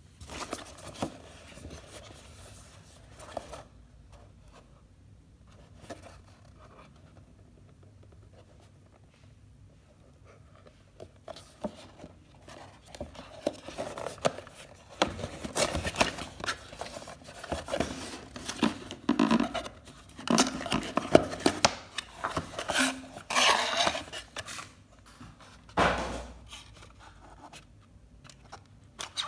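Hands handling and opening a cardboard toy box with a plastic window: irregular scraping, rubbing and clicking of cardboard, faint at first and busier from about twelve seconds in, with one dull thump near the end.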